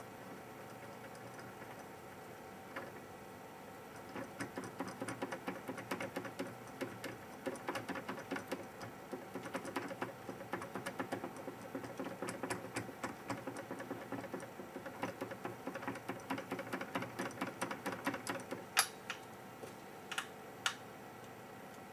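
Quick, irregular rubbing and scrubbing strokes on a reballing jig as flux is cleaned off it, like fast typing, followed near the end by three sharper clicks as the GPU chip is handled against the jig.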